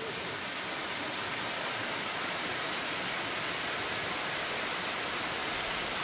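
Waterfall pouring into a large pool: a steady, even rush of falling water.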